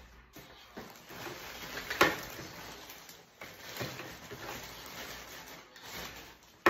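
Household handling noises: scattered rustles and soft knocks, with one sharp knock about two seconds in.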